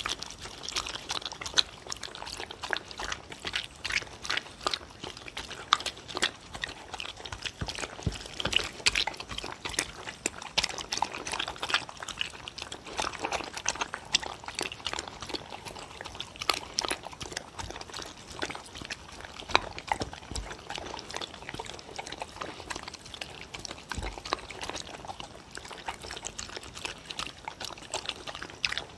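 Two dogs eating soupy food from wooden bowls close to the microphone: a continuous run of wet lapping, slurping and chewing smacks.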